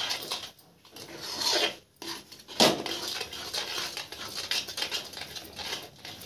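Spatula scraping and knocking around a metal kadhai as a thick, thickening milk-powder peda mixture is stirred: irregular strokes, with a sharper scrape about two and a half seconds in.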